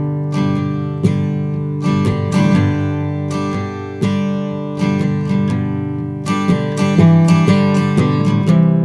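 Instrumental song intro, chords strummed on acoustic guitar at an even pace, with no singing.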